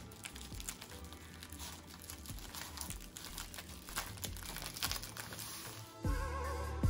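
Dry nori seaweed sheet crinkling and crackling as it is rolled by hand around a glass-noodle filling, over background music that grows louder near the end.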